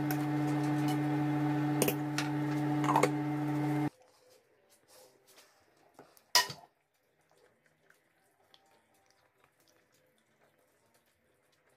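A slotted spatula clicks against a stew pot over a steady hum, which cuts off suddenly about four seconds in. A couple of seconds later a glass lid is set on the pot with one sharp clink, the loudest sound, followed by faint small ticks.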